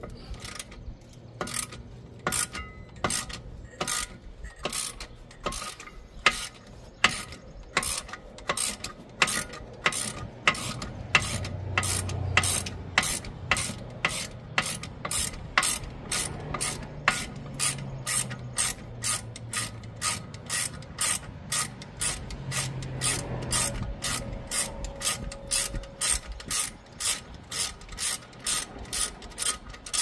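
Hand ratchet wrench clicking as a 14 mm rear brake caliper bracket bolt is backed out. The clicks come about once a second at first, then speed up to two or three a second from about ten seconds in.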